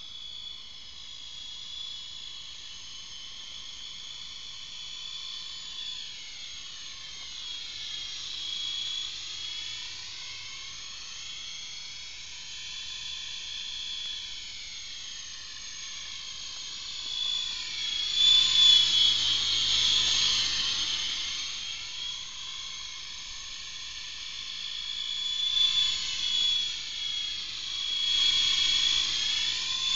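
Radio-controlled scale model helicopter flying: a steady high-pitched whine from its motor and rotors, swelling and fading as it moves about. It is loudest as it comes closest, about two-thirds of the way through and again near the end.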